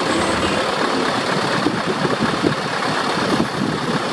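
Diesel engine of a Scania truck idling steadily close by.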